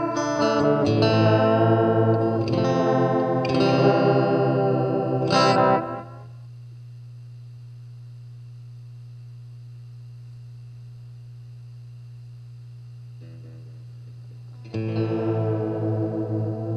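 Electric guitar (a Squier Bullet Stratocaster) played through an EarthQuaker Devices Space Spiral modulated delay into a Fender Super Champ XD amp, with modulated, slightly grainy repeats. The playing stops abruptly about six seconds in, leaving a steady low hum for several seconds, and starts again near the end.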